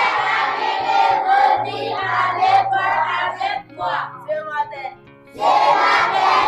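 A group of children's voices chanting together in unison, with a short break about five seconds in.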